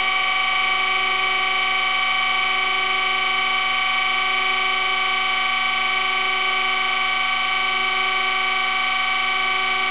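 Surface grinder wheel grinding the outside diameter of a hardened steel drill bushing, about 62 Rockwell, while electric centers spin the bushing on a mandrel. It is a steady machine whine with several held tones and no change in pitch or level.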